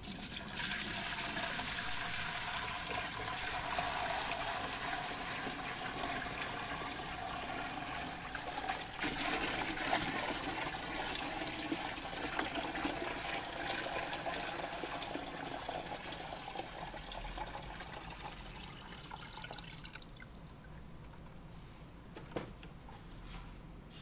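Water running and splashing steadily, getting quieter about twenty seconds in.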